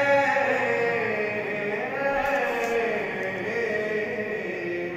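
A man chanting melodically into a handheld microphone, holding long notes that glide slowly up and down.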